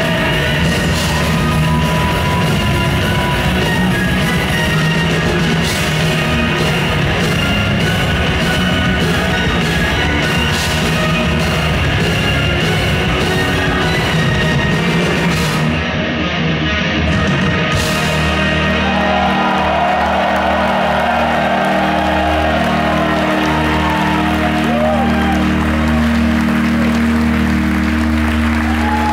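A live symphonic metal band plays the closing section of a song: drums, cymbals, guitars and vocals until about sixteen seconds in, then a brief break and long held chords that ring out to the end.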